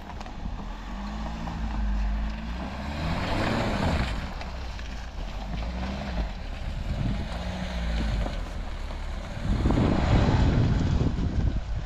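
Kia Sorento SUV's engine revving as it drives off-road over grass and mud, its pitch rising and falling several times over a steady low rumble, with wind buffeting the microphone. A louder rush of noise comes near the end.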